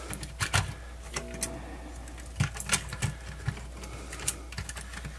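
Irregular light clicks and taps of a plastic personal cassette player's casing and circuit board being handled, over a steady low hum.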